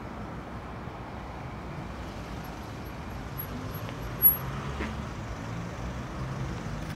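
Steady outdoor traffic hum from passing road vehicles, with a single brief thump about four seconds in.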